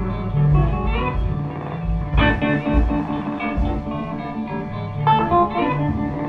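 Live band jam with guitar playing over a bass line, in a bluesy style.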